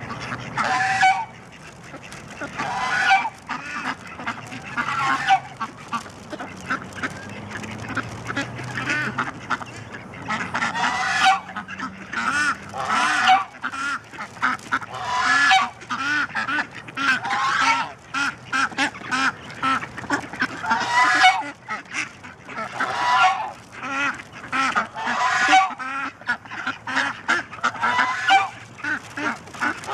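A flock of waterfowl calling loudly and repeatedly, with a long call every second or two among many shorter ones.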